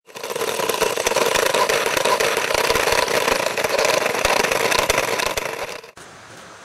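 Boston Dynamics Sand Flea wheeled robot driving over asphalt: a steady drive-motor drone with crackling clicks from the wheels on grit. It cuts off sharply about six seconds in, leaving a faint hiss.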